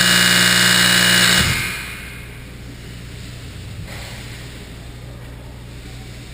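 Ice rink horn or buzzer sounding once, a loud steady blare of about a second and a half that cuts off, over the arena's constant low hum.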